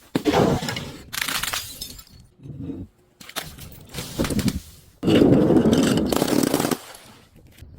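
Brittle, crunchy objects being crushed and breaking in a series of cracking, crunching bursts. The longest and loudest burst comes about five seconds in and lasts nearly two seconds.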